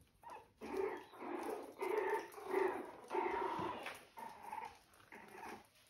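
Puppies growling in play, a string of about seven short, high-pitched growls.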